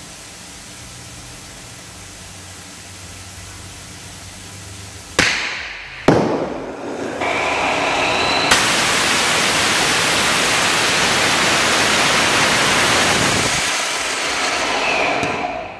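Small hybrid rocket engine, burning high-density polyethylene fuel, being test-fired. A steady hiss gives way to two sharp cracks about five and six seconds in as it lights. It builds to a loud, steady rushing noise for about five seconds, then tapers off near the end.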